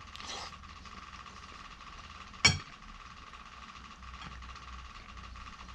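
A single sharp knock about two and a half seconds in, over a steady background hum.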